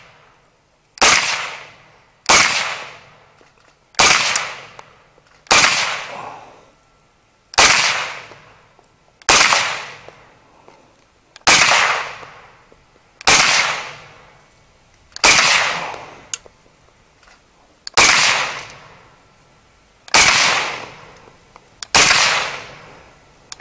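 Suppressed K1A 5.56 mm carbine firing standard supersonic ball ammunition in slow single shots, about a dozen, one every one and a half to two seconds. Each shot still has a sharp crack, piercing enough to grate on the ears, followed by a short fading tail.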